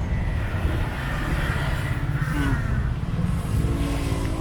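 Road traffic running past, cars and motorcycles, as a steady low rumble, with faint chatter of other people in the background.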